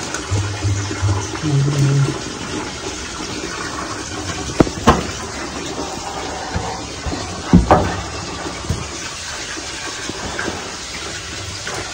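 Water jetting from a hose into a flooded hole at the foot of a wall, splashing and gurgling steadily, with a couple of sharp knocks around the middle.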